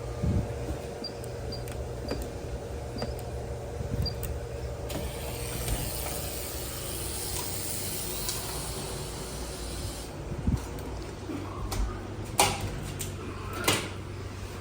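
Shower water spraying, a hiss that starts abruptly about five seconds in and cuts off about five seconds later, over the steady hum of the room's ventilation. A few sharp knocks follow near the end.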